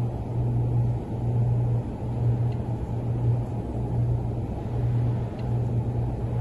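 Flow wrapping machine running: a steady low hum with occasional brief dips.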